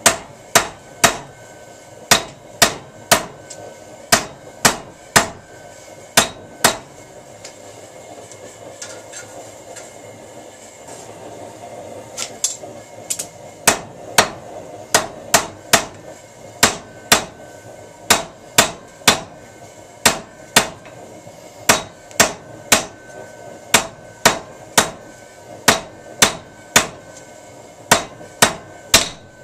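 Hand hammer beating a red-hot square steel bar, in steady runs of about two ringing blows a second, with a pause of about five seconds after the first seven seconds. The forge's rumble runs underneath.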